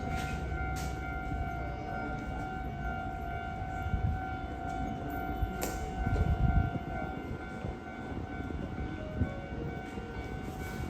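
Railway level-crossing warning alarm sounding steadily, with a low rumble that swells in the middle.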